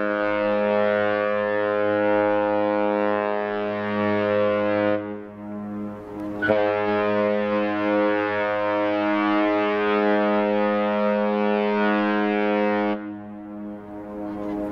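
Cruise ship Costa Diadema's horn sounding two long, low blasts: the first is already sounding and stops about five seconds in, and the second starts about a second and a half later and holds for about six seconds.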